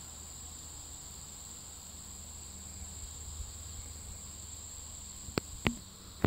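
Steady, high-pitched insect chorus, crickets or similar, continuing without a break. A few sharp clicks come near the end.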